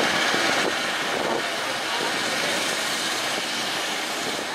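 Boeing 747's four jet engines at high thrust as the jet climbs away after takeoff, a steady rushing rumble that slowly fades.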